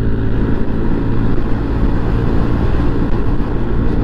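Yamaha Aerox 155 scooter riding at a steady speed: a continuous engine drone with wind and road noise rushing over the microphone.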